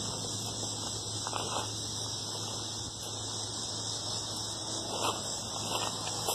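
Steady high-pitched chorus of insects, with a faint low hum underneath.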